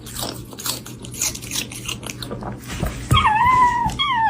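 Crunchy biting and chewing of food. About three seconds in, a small creature gives a high whining call that wavers, then slides down in pitch near the end.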